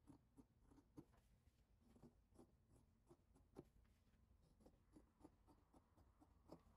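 Faint snipping of scissors cutting through fabric: irregular short clicks of the blades closing, a few each second.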